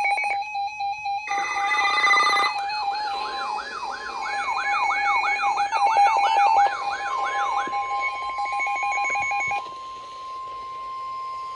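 Layered electronic emergency alert tones: a steady alarm tone, a siren sweeping up and down about three times a second from about two to eight seconds in, and a long steady tone near 1 kHz held until just before the end. This is the attention signal that announces an Emergency Alert System tornado warning.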